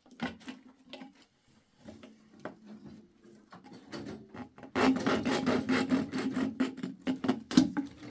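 Rasping, rubbing strokes by hand: a few light scrapes at first, then about five seconds in a dense spell of fast scraping that lasts about three seconds.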